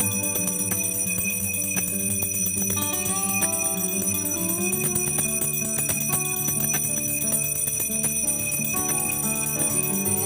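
A bell ringing continuously with music playing underneath, its ringing tones held steady while a melody moves below them.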